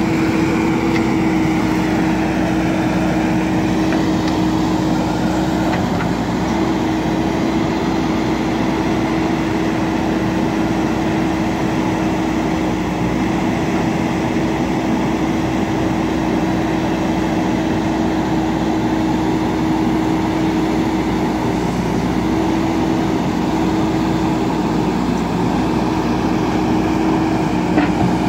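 JCB backhoe loader's diesel engine running steadily, with an even hum throughout.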